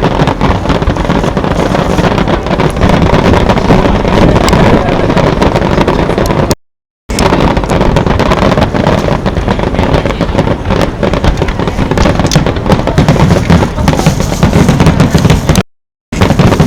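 Fireworks finale: a dense, continuous barrage of bursts, low rumbling booms mixed with many sharp crackles, loud throughout. The sound cuts out completely twice, for about half a second each, in the middle and near the end.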